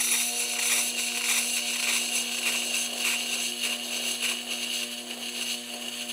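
Steel pizza cutter wheel ground against the turning stone of a Tormek T8 wet grinder: a steady scraping hiss of metal on stone, easing off a little and stopping at the end.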